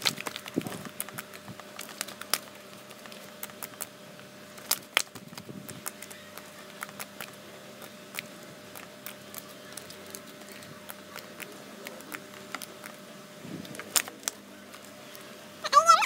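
Glossy pink slime being squeezed, poked and stretched by hand, making irregular sharp clicks and crackling pops.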